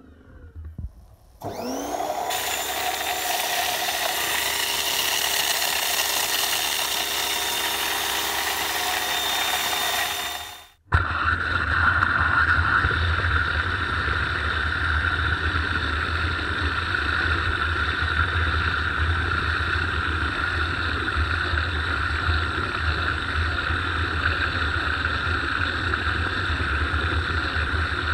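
Electric pressure washer (SUNGOLDPOWER 2200 W) starting up about a second and a half in, with a rising whine as the motor comes up to speed, then running steadily with the hiss of water spraying through a rotary surface cleaner. About eleven seconds in the sound cuts off abruptly and gives way to the washer running steadily again, driving a rotating wash brush against car bodywork.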